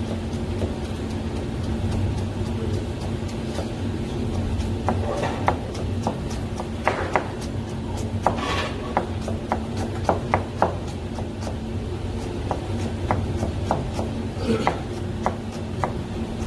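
Kitchen knife chopping ginger on a plastic cutting board: sharp, irregular knocks of the blade on the board, coming thickest in the middle, over a steady low hum.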